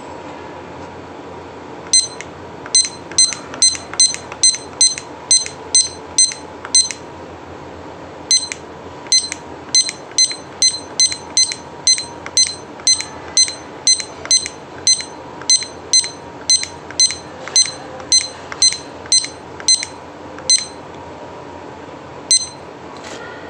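Digital kitchen timer giving a short high beep with each press of its minute button, about two beeps a second in two runs with a brief pause between them, as the time is set upward. A steady background hum runs underneath.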